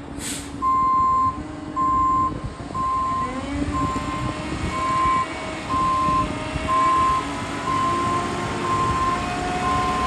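Backup alarm of a concrete mixer truck beeping steadily as it reverses, a little more than one beep a second, over the low running of the truck's diesel engine.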